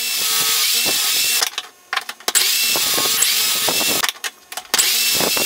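Corded electric drill boring pocket holes with a stepped bit through a pocket-hole jig into the end of a wooden rail. There are three runs of drilling, the motor's whine rising up to speed at the start of each, with short pauses and a few clicks between them.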